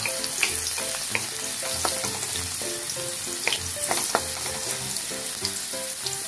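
Ginger and garlic sizzling in a little hot oil in a metal wok, stirred with a wooden spatula that scrapes and taps against the pan now and then.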